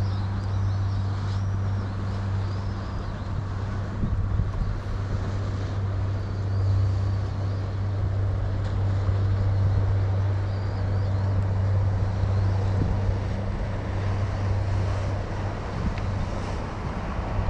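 A steady low engine-like drone over an even rushing wash, with faint short high chirps now and then.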